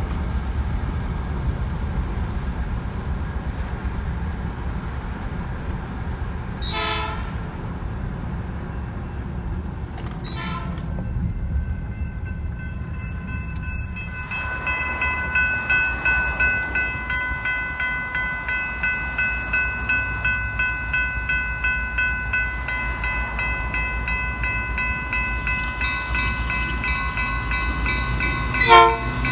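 Road noise and rumble heard from inside a moving car, then a railroad crossing warning bell ringing in rapid, steady strokes over the rumble from about halfway through: the crossing signals are active for an approaching train. A short loud burst comes near the end.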